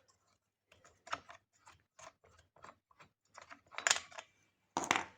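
Irregular clicks and knocks of small hard parts being handled at a petrol trimmer's starter hub, the loosened ratchet being taken off. Two louder knocks come near the end.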